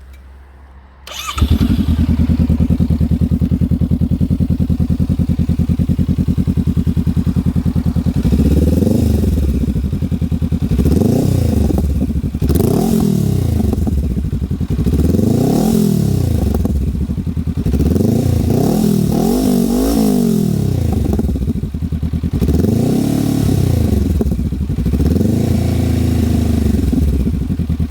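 2020 Honda CMX500 Rebel's 471 cc parallel-twin engine starting about a second in, then idling steadily through its exhaust. Later it is revved in a series of throttle blips, the pitch rising and falling each time, before it settles back to idle.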